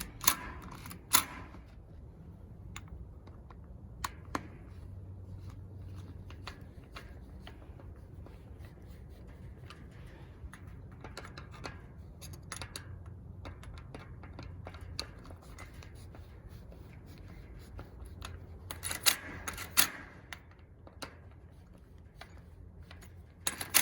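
Hand screwdriver tightening the mounting screws of a Schlage doorknob on a metal door, with scattered clicks and light metal taps, some in short clusters, over a steady low hum.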